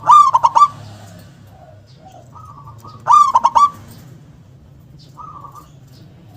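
Zebra dove singing: two loud phrases of quick, clipped cooing notes, one at the start and one about three seconds in, with softer single coos between them.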